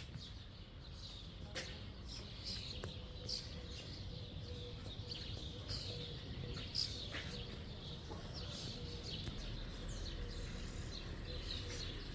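Small birds chirping and singing, with many short high chirps scattered through, over a steady low background rumble.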